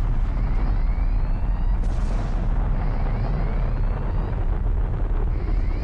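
Loud, steady deep rumble, with faint whines rising in pitch every second or two.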